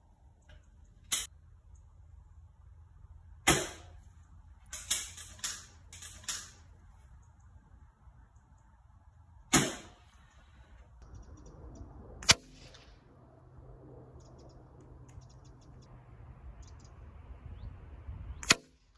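Moderated Stoeger XM-1 pre-charged pneumatic air rifle firing, a handful of sharp shots several seconds apart, with a few lighter clicks between them.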